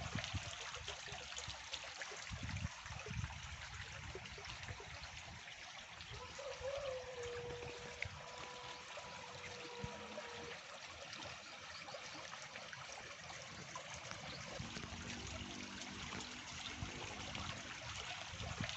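Water trickling and running steadily in a small irrigation ditch.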